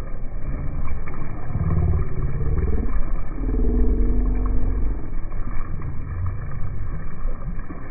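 Motorboat engine running underway, a steady low rumble.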